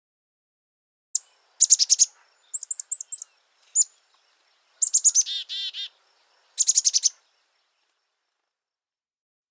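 Small songbird chirping: about six short phrases of high chirps and trills, one with a lower buzzy run of notes, with dead silence between phrases; the song stops about seven seconds in.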